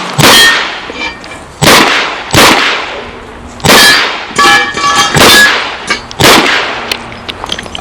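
Chiappa Rhino .38 Special revolver fired six times, roughly a second apart, with steel targets ringing with a clang after hits.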